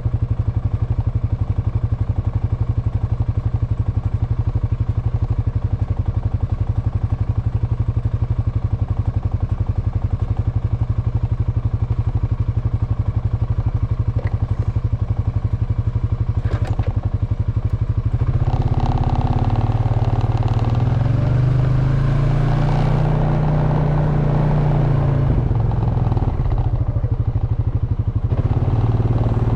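Honda Foreman ATV's single-cylinder engine idling with an even, steady beat, then revving up about two-thirds of the way in as the quad pulls away, its pitch rising and falling with the throttle.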